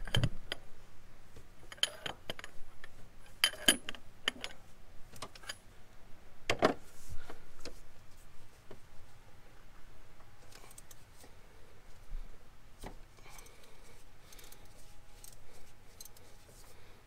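Scattered metallic clicks and clinks of a socket wrench being fitted and worked on a power steering pump's lower mounting bolt, the sharpest clink about six and a half seconds in.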